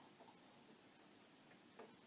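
Near silence: faint steady room hiss with two faint ticks, one just after the start and one near the end.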